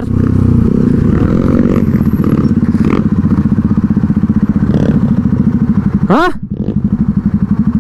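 Motorcycle engine running at low revs with a steady, rapid pulsing throb while riding up a dirt track. There is a short rising sound about six seconds in, and then a brief dip in loudness.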